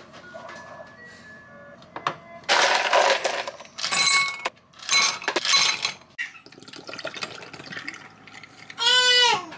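Ice cubes tipped into a glass, clattering and clinking against it in several loud bursts, the glass ringing briefly, then juice poured from a bottle into the iced glass. Near the end, a short pitched sound that drops in pitch as it ends.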